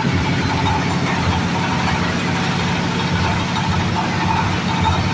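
Oil-palm loose-fruit threshing machine running steadily on test, its drive engine giving an even, unchanging drone.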